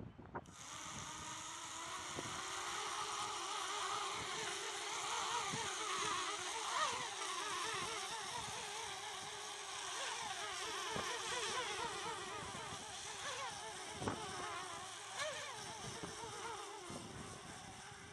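Small quadcopter's motors and propellers whining in flight. The pitch keeps wavering up and down as the throttle is corrected against the wind. It starts sharply about half a second in and fades near the end.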